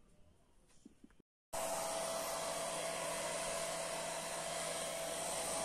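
Hair dryer running steadily, with a constant whine over its rushing air, starting abruptly about a second and a half in as it dries a cat's wet fur after a bath.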